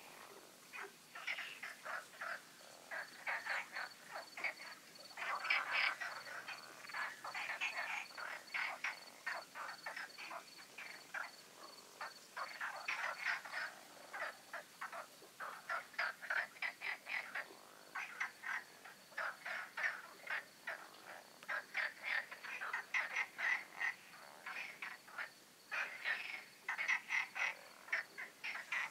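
A chorus of many frogs calling at night in rapid pulsed croaking trains that overlap and swell and fade in waves. A faint steady high tone runs beneath it.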